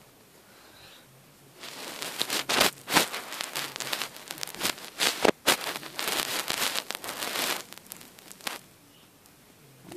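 Close, irregular rustling and crackling of fabric rubbing against the phone and its microphone as the phone is handled. It starts about two seconds in and stops shortly before the end.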